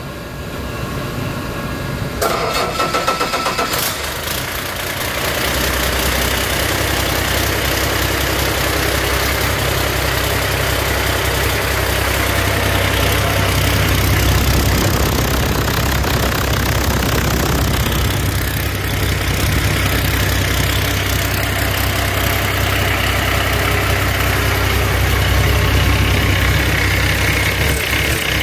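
A 15-litre Cummins ISX inline-six diesel engine on a test stand is cranked and fires about two seconds in. It settles into a steady idle.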